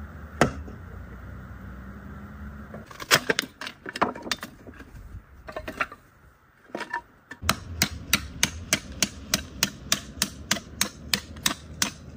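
Sharp knocks of a knife being driven with a stone into dry, brittle scrap wooden boards to split them into kindling. A single knock near the start, a cluster of knocks a few seconds in, then steady knocking about three times a second over the last few seconds.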